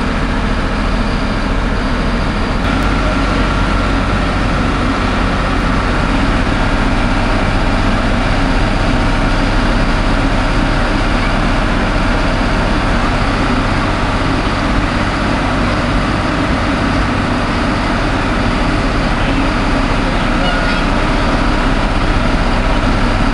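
Underfloor diesel engines of a first-generation British Rail diesel multiple unit running steadily while it stands, with a rough note likened to a decrepit Ford Cortina. The unit is struggling to get going.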